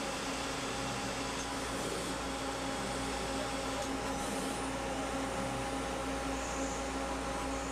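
Citizen A20VII Swiss-type CNC lathe running while it machines a small bone screw: a steady machine whine made of several held tones over a low hum. One of the tones cuts off right at the end.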